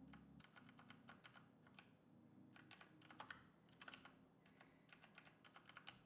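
Faint computer keyboard typing: several quick runs of keystrokes, with short pauses between them, as entries are made in a spreadsheet.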